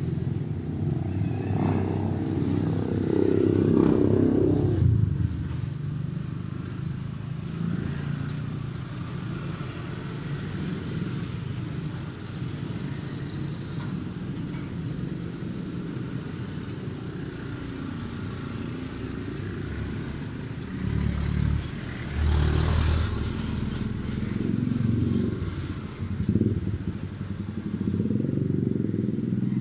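Street traffic with small motorcycle engines running past, including a motorized tricycle. There are louder passes about three seconds in and again over the last third, under a steady low rumble.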